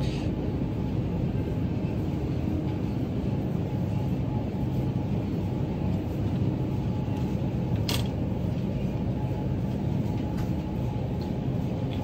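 Steady low rumble of supermarket background noise, with a single short click about eight seconds in.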